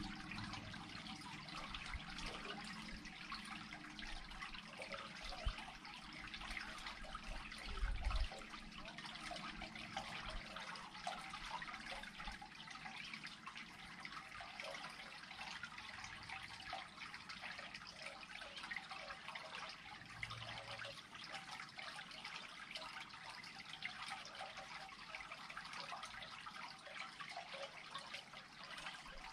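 Water draining steadily into a culvert that has just been cleared of a beaver blockage, running with a fine, even flicker. A brief low bump about eight seconds in.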